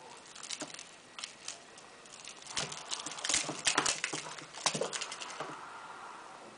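Kitten batting at and scrambling after a feathered toy mouse on a springy wire over a tiled floor: irregular taps, scuffs and rattles, busiest in the middle.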